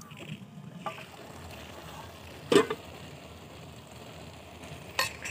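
Aluminium cooking pot's lid being taken off, with one sharp metallic clank about two and a half seconds in and a lighter knock near the end, over low steady background noise.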